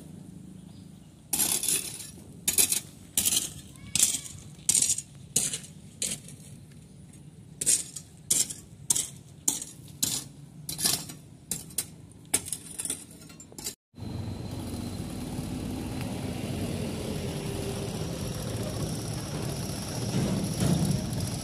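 A metal hand tool strikes broken concrete and gravel over and over, about two sharp chinking blows a second with a short pause midway, as the damaged deck surface is chipped out. After about 14 seconds it gives way to the steady running of a truck engine close by, a little louder near the end.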